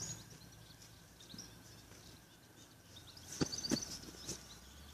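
Quiet outdoor ambience with small birds twittering in short high chirps, strongest about three seconds in. Two sharp clicks come close together at the same point.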